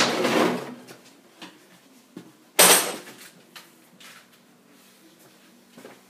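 Handling noise: a loud rustling clatter at the start and a sharper knock about two and a half seconds later, with a few faint clicks between and a faint steady hum underneath.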